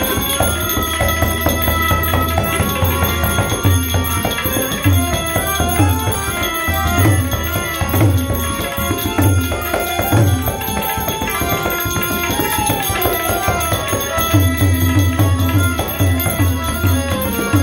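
Live Gujarati devotional song (bhajan) played on harmonium and tabla, the tabla's deep bass drum striking in a steady rhythm, with small hand cymbals (manjira) ringing along and a man's singing voice gliding over the melody.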